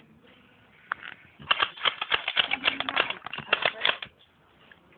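Airsoft guns firing: a dense, irregular run of sharp clicking shots starting about a second and a half in and stopping about a second before the end.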